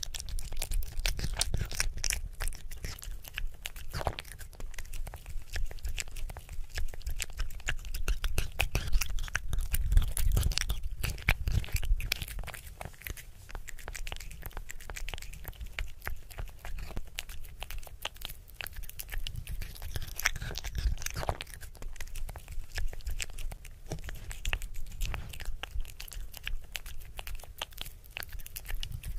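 Kitten chewing and smacking on chopped beef: a dense run of small wet clicks and crunches, louder for about the first twelve seconds, then softer.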